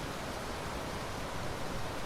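Steady rain falling, an even hiss with no single drops or thunder standing out.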